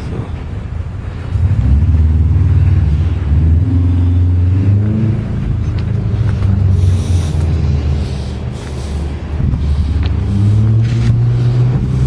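Car engine running loud and low, starting up about a second in, with its pitch rising and falling as it is revved, easing off briefly near the end before picking up again.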